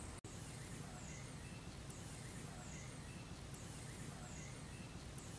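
Faint rural outdoor ambience: a steady hiss with short, high, falling chirps repeating several times, less than a second apart. The sound cuts out for an instant just after the start.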